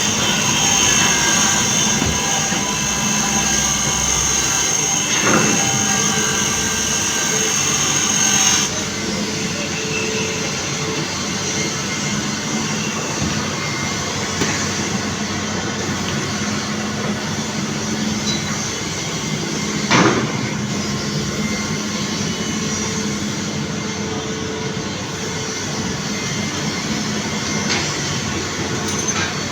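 Excavator running steadily with a low, even engine tone. A sharp knock comes about five seconds in and a louder one about twenty seconds in, and the high hiss drops away about nine seconds in.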